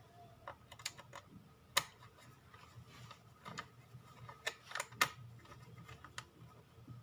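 Scattered small clicks and taps as a laptop and its parts are handled after its screws are refitted.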